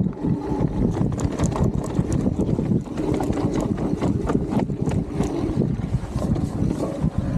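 Mountain bike riding fast down a dry dirt trail: steady wind buffeting on the camera microphone over the rumble of knobby tyres on dirt, with many sharp clicks and rattles as the bike goes over bumps.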